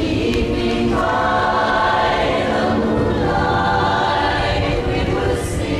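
A women's chorus singing in harmony, holding long chords, with a brief break about a second in.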